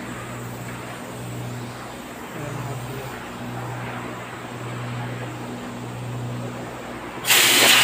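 A steady low machine hum that drops out and comes back a few times. About seven seconds in, a loud rushing hiss starts abruptly: compressed air blowing from an air hose at a plaster toilet mould.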